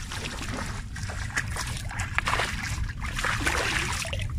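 Water sloshing and splashing with small irregular clicks and drips, over a steady low rumble.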